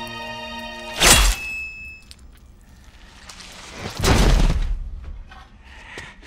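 Film sound effects: a held synth chord cuts off about a second in at a loud crashing impact. A second heavy, booming impact follows near four seconds and dies away over about a second, then a few faint knocks.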